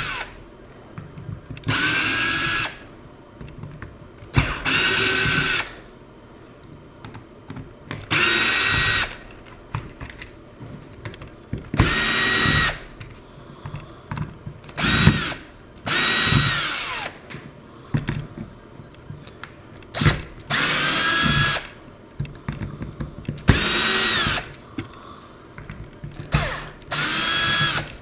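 Power drill backing screws out of a pressure washer wand's plastic handle: about ten short runs of the motor, each under a second, its whine climbing in pitch and then holding, with brief pauses and small clicks in between.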